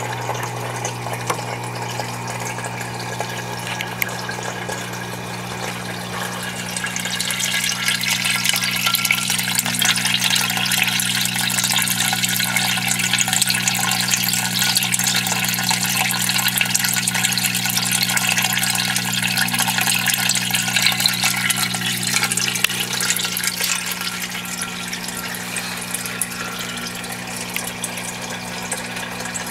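Turtle-tank water filter running: a steady rush of splashing, bubbling water over a low motor hum, the water louder from about seven seconds in until about twenty-two seconds in.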